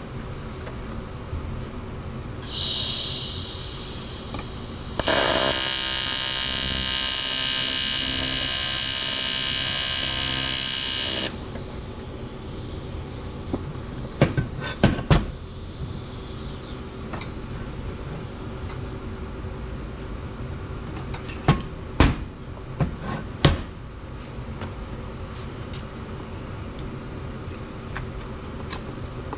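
AHP TIG welder's arc on aluminum, buzzing steadily for about six seconds, starting about five seconds in after a shorter high-pitched sound, then cutting off. Several sharp clicks and knocks follow later.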